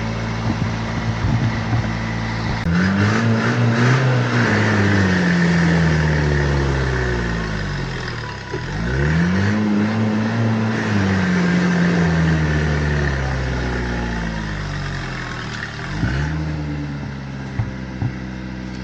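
An off-road 4x4's engine idling, then revved hard twice, each time climbing in pitch, holding for a second or two and slowly falling away, with a brief blip of the throttle near the end. A few short knocks are heard.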